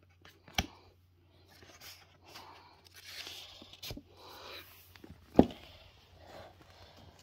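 Paperback books being handled and set down on a wooden floor: rustling of covers and bag, a couple of light knocks, and one louder thud about five seconds in as a book is laid down.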